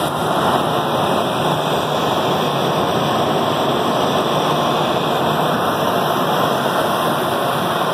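A steady rushing noise with no clear pitch or rhythm, played loud through the outdoor loudspeakers of a projection show as part of its soundtrack.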